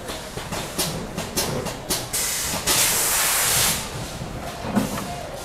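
Assembly-line ambience in a power bank factory: scattered light clicks and clacks of small parts and tools on the benches, with a loud hiss lasting about a second and a half in the middle.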